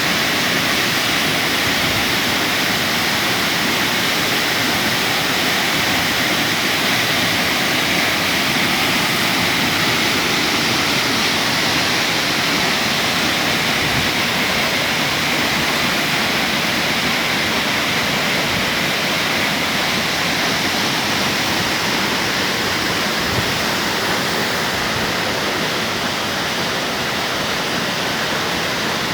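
Waterfall's falling water rushing steadily at an unchanging loud level.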